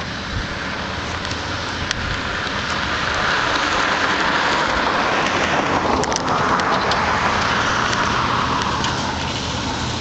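Motor vehicle running: a steady low engine hum under a rushing hiss of tyres and wind that swells through the middle and dips briefly about six seconds in.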